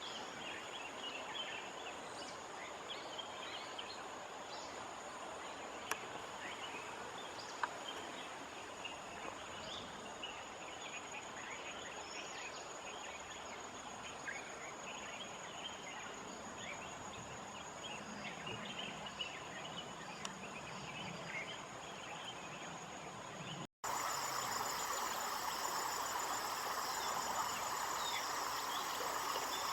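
Outdoor farmland ambience: a steady high insect drone under many short bird chirps. About three-quarters of the way through, a brief dropout is followed by an abrupt switch to a louder ambience with a pulsing insect trill.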